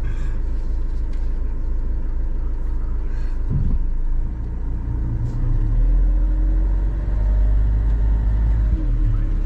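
Engine and road rumble heard inside the cab of a moving motorhome, a steady low drone that grows heavier about halfway through.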